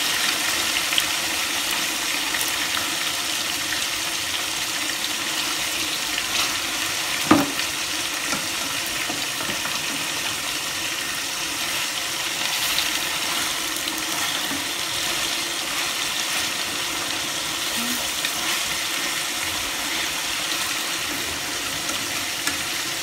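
Chicken drumsticks sizzling steadily as they fry in oil in a steel wok, with a single sharp knock about seven seconds in.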